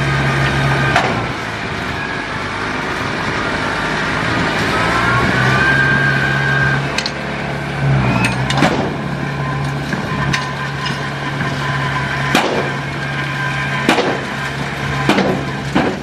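Heavy diesel earthmoving machine running steadily, with several sharp knocks scattered through and a high whine that rises and holds for a couple of seconds around the middle.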